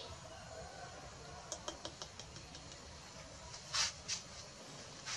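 Young monkey moving about in a wire cage: a run of faint light clicks, then three short scratchy rustles.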